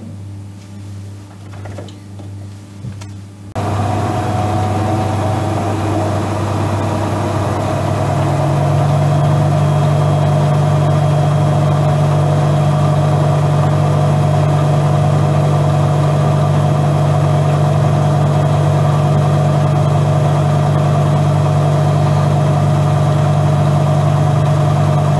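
Regal 8121 washing machine spinning at 800 rpm, its whine climbing a little and then holding steady as the drum reaches speed. About three and a half seconds in, the sound abruptly gets louder with a strong steady hum. This hum is typical of the machine's standard asynchronous drain pump running during the spin, which the owner judges the loud weak point of an otherwise quiet brushless-motor machine.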